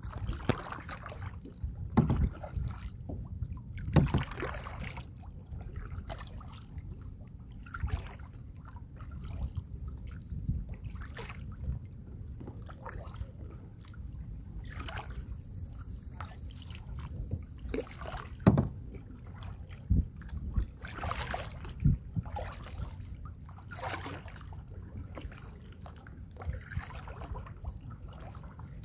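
Kayak paddle strokes: the blades dip and splash in the water about every two seconds, over a steady low rumble.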